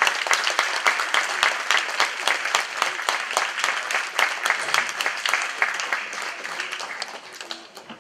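Audience applauding, many hands clapping together; the clapping thins out and fades over the last couple of seconds.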